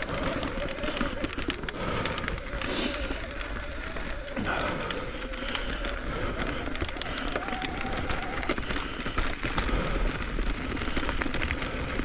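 Mountain bike rolling over a dirt and gravel forest trail: the tyres crackle and crunch on the ground and the bike rattles with many small clicks, over a steady low rumble.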